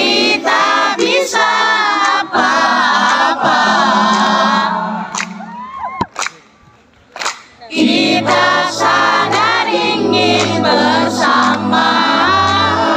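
Live pop concert music with many voices singing together, a crowd singing along with the band. Around six seconds in it drops away for a moment, and from about eight seconds in the band comes back with a pulsing bass line.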